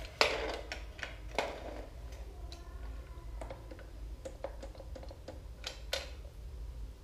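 Small metal clicks and knocks from hands working the clamps and levelers of an Intro Line skate-sharpening jig that holds two speed-skate blades. The sharpest knocks come just after the start, about a second and a half in and near six seconds, with lighter ticks between.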